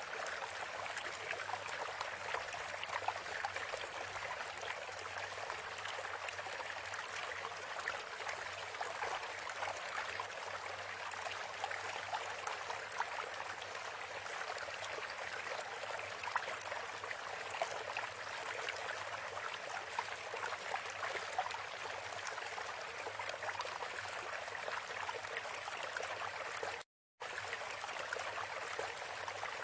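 Steady rushing, crackly noise like running water, even throughout, which cuts out completely for a moment near the end.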